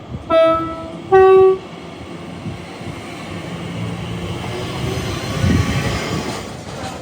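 Two-tone train horn: a short lower note, then a briefly held, louder, higher note. The rumble of the passing train then builds to a peak about five to six seconds in.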